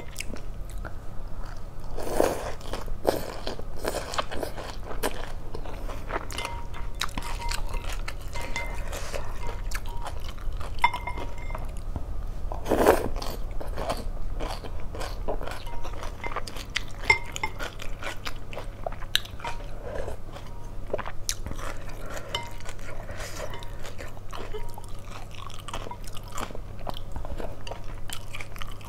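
Close-up mouth sounds of eating chicken-offal pho: steady chewing and crunching of crisp chicken gizzard and fresh herbs, with a louder slurp of rice noodles about 13 seconds in.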